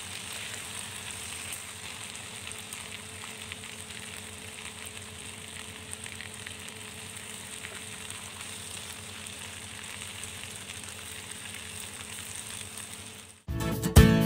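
Whole flattened chicken sizzling in hot oil on a flat griddle pan, a steady even sizzle. It cuts off abruptly near the end as acoustic guitar music starts.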